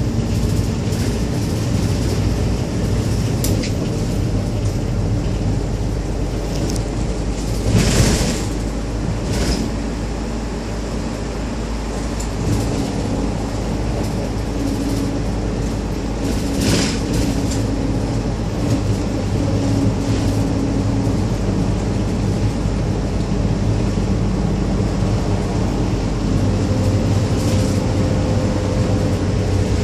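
Hong Kong public light bus (minibus) cabin at speed on a highway: steady engine drone and road noise with cabin rattles. Two louder rattles or knocks stand out, about eight seconds in and again near seventeen seconds.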